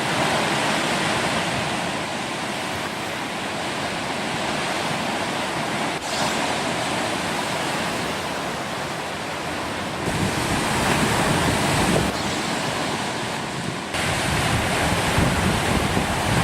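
Heavy storm surf crashing and washing, with strong wind gusts of a severe tropical storm. From about ten seconds in, the gusts get louder and rumble low on the microphone.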